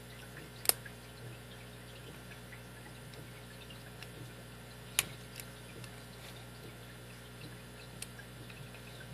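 Small metallic ticks of a lock pick working the pins inside a Master Lock No. 5 padlock under tension, with two sharper, louder clicks, one just under a second in and one about five seconds in, over a steady low hum.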